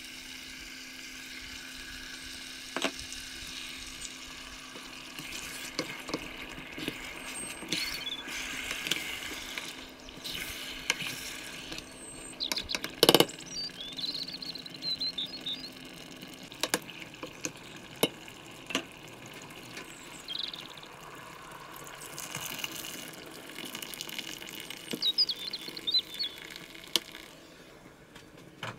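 Chicken pieces sizzling in spices in a stainless steel pot, with sharp knocks and scrapes from a wooden spoon against the pot as it is stirred. Watery, liquid sounds join the sizzle as tomato and water go into the pot.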